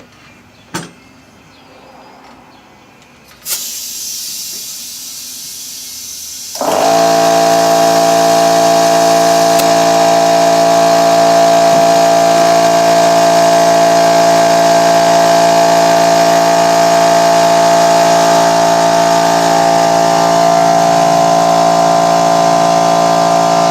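Compressed air hissing into a tire, then an air compressor starting about three seconds later and running loudly and steadily as the tire is inflated to seat the bead.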